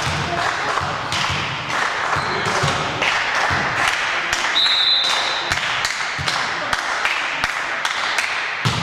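Basketball being bounced in a gymnasium: repeated thuds of the ball on the court over a steady din of players, with a short high squeak about five seconds in.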